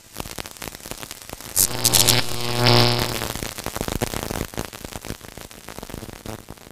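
Logo intro sound effect of crackling static-like glitch noise. A few sharp hits come about one and a half seconds in, then a buzzing tone about a second long, and the crackle slowly fades.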